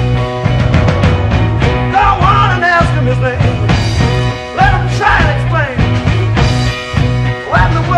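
Background music with a steady beat and sustained bass, with a sliding melody line coming in about every two and a half seconds.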